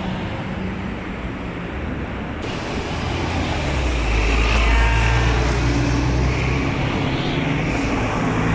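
Road traffic with the engine of a large vehicle running close by, a steady low hum that grows louder about halfway through.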